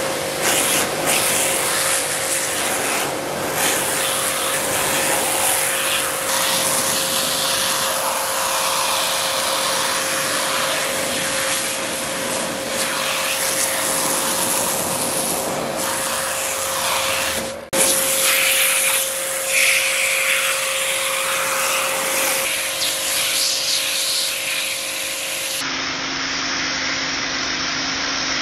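Pressure washer jet spraying water onto a laptop: a loud, steady hiss of water with the washer's motor humming underneath. The sound breaks off for an instant about 18 seconds in, and near the end the hum drops to a lower pitch.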